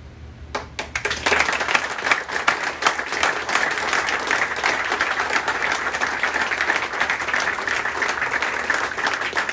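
A small crowd applauding: a few first claps, then from about a second in a steady, dense patter of many hands clapping.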